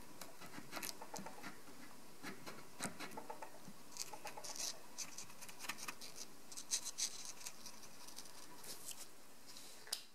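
Paint marker tip dabbing and scratching on paper: irregular small clicks and scrapes over a faint steady hiss, with a sharper click near the end.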